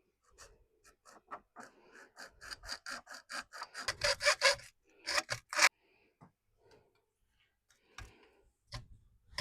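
Hand saw cutting a window screen frame piece to length: quick back-and-forth strokes, about three a second, growing louder until they stop about six seconds in. A few knocks near the end.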